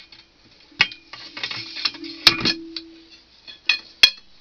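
Steel hand-auger extension rods clinking and knocking as they are fed down a deep bored hole: about five sharp metallic clanks with a short ring, and a low steady hum for a second or so in the middle.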